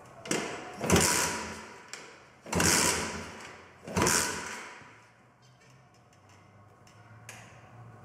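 An 80cc four-stroke pocket bike engine kick-started three times with the choke on. Each kick spins the engine over in a short burst that dies away, and it does not catch.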